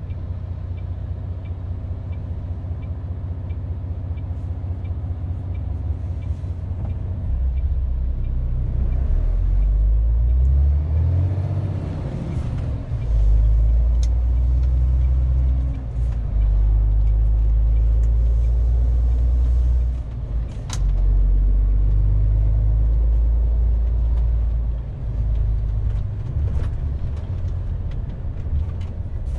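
MAN TGX 470 truck's straight-six diesel heard from inside the cab: idling at first, then rising in pitch as the truck pulls away and drives on, the engine note dipping briefly a few times as the gearbox shifts up. A faint regular ticking sounds over the first few seconds, and there are a couple of sharp clicks.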